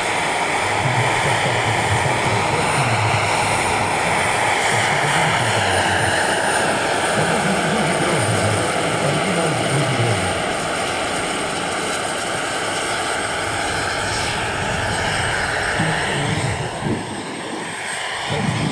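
Turbine-powered 1:6.7-scale RC Mi-24 model helicopter running: the steady whine of its Pal Taurus 12 kW turbine mixed with rotor noise, the pitch drifting slowly up and down, a little quieter near the end.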